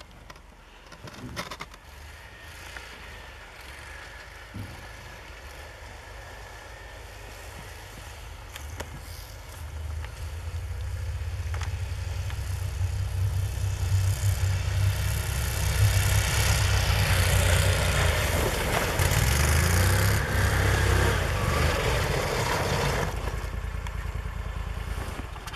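Argo eight-wheel amphibious ATV running through snow on rubber tracks, its engine rumble and the hiss of tracks and snow growing louder about ten seconds in as it drives close by, then dropping off near the end.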